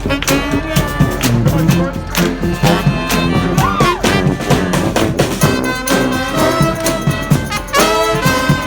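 Street brass band playing live: several horns (trumpets, trombones, saxophones) over a steady drum beat, with one horn swooping up and back down in pitch about four seconds in.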